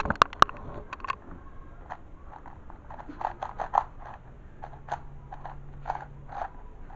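Plastic puzzle cube being turned by hand: runs of quick, light clicks as its layers are twisted. The cube is freshly lubricated and being broken in.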